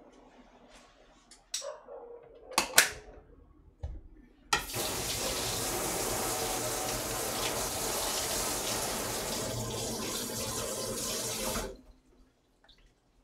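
Kitchen sink faucet running steadily for about seven seconds, turned on about four and a half seconds in and shut off abruptly near the end. Before it come a few sharp knocks and clinks, the loudest a pair of knocks about two and a half seconds in.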